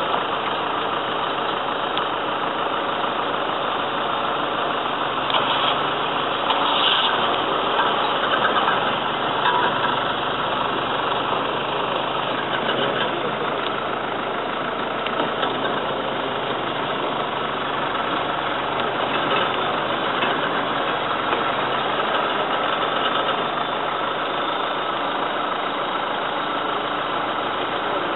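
Open safari jeep's engine running steadily at idle.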